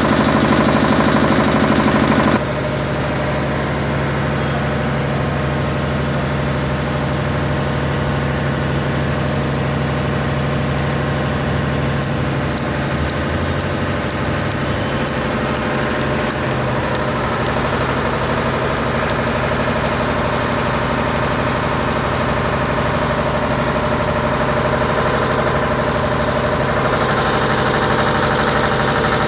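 A 7.5 kVA air-cooled diesel generator's engine running steadily. The sound changes abruptly about two seconds in, dropping in level and shifting in tone, then runs on evenly.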